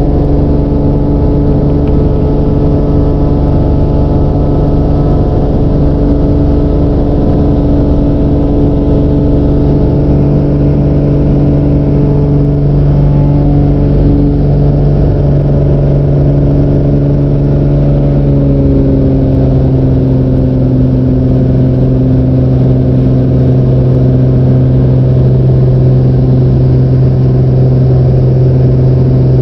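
Floatplane's piston engine and propeller running steadily at high power through the takeoff run and initial climb, with rushing air. About two-thirds of the way through the engine note steps down a little and holds lower.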